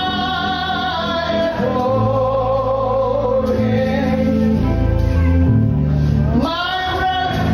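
A man's voice singing a gospel hymn over steady instrumental accompaniment. He holds long sung notes through the first half, eases off around the middle, then slides up into a new held note near the end.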